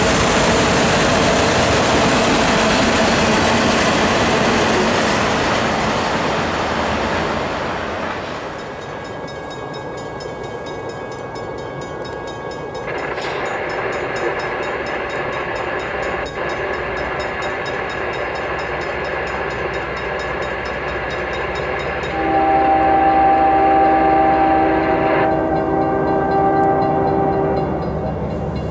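Freight train autorack cars rolling past close by, a loud steady rumble and rattle that fades out about eight seconds in. After a break, a quieter rumble from an approaching train, and about 22 seconds in a diesel locomotive horn sounds a long chord of several notes for about six seconds.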